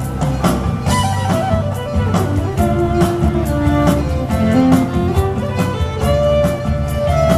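Live instrumental music: a fiddle melody over a steady percussive beat and a low accompaniment.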